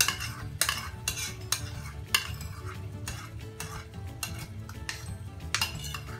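A plastic slotted spoon stirring and scraping through chicken karahi in a pot as yogurt is mixed into the masala, in a run of short scrapes and knocks that thins out in the second half.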